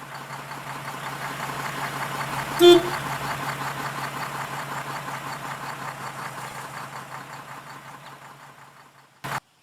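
A motor vehicle drives past with a steady engine hum, growing louder and then fading away, and gives one short horn toot a little under three seconds in. A brief sharp knock comes near the end.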